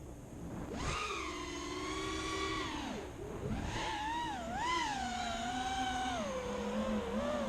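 FPV racing quadcopter's motors and propellers whining, the pitch following the throttle. It jumps up about a second in, drops near three seconds, wobbles up and down, then settles to a lower steady whine.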